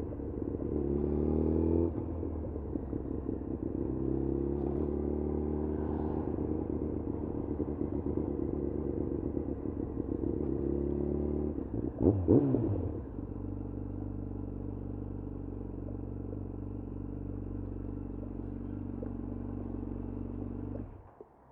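2011 Yamaha FZ1's inline-four engine accelerating with rising revs, then running steadily, with a brief loud rev blip about twelve seconds in. It settles to a steady idle and stops suddenly near the end.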